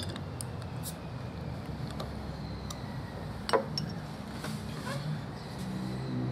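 Beer bottle's crown cap being levered off with a bottle opener: a few small clicks, then a sharp metallic pop about three and a half seconds in, over a steady low rumble.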